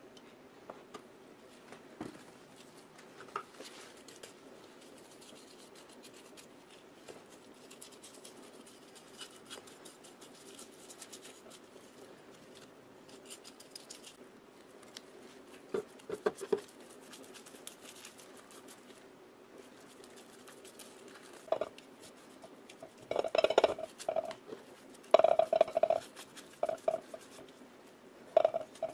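Paintbrush dabbing and brushing thick paint-stripper gel onto old electric-motor housings, with soft scratchy sounds. Several bunches of sharp clinks and knocks come in, the loudest a little over halfway through, as the brush, ceramic bowl and metal parts knock together in a plastic tub. A faint steady hum runs underneath.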